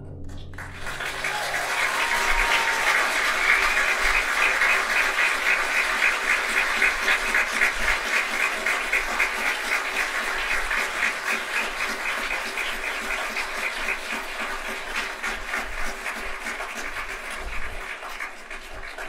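Audience applauding at the end of a concert band piece. The clapping swells in the first few seconds, then slowly dies away, falling off near the end.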